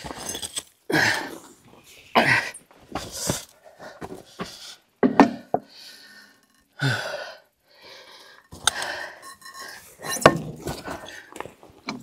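A person panting and grunting with effort, with sharp metal clinks and knocks in between, as of heavy steel parts being lifted and handled.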